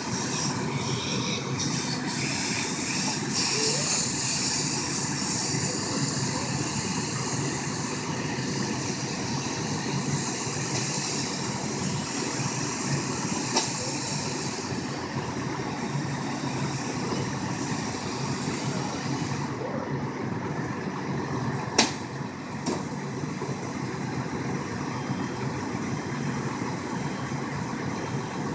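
Fire engine's engine running steadily under the hiss of a hose spraying water onto a burning car. A single sharp knock comes about two-thirds of the way through, and a vehicle's reversing beeps start near the end.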